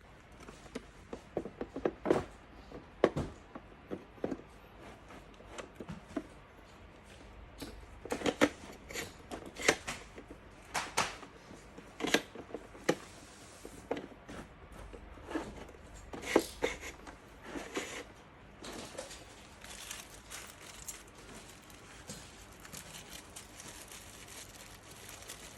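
Shopping trolley parts being handled and fitted together by hand: irregular sharp knocks and clicks with some rustling, busiest in the first two-thirds and thinning out near the end.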